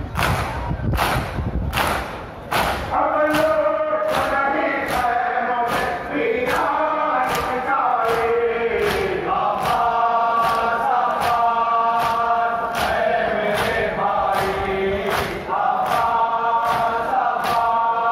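A crowd of mourners doing matam, beating their chests with open hands together in a steady rhythm of about two beats a second. About three seconds in, voices join, chanting a mourning noha in unison over the beat.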